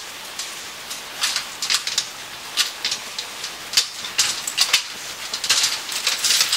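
Irregular metallic clicking and rattling, the sound of hands fumbling at the lock of a metal grille door, with a cluster of clicks about four to six seconds in.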